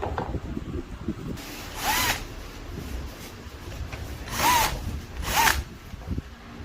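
Power drill run in three short bursts, its motor whine rising and falling with each trigger pull.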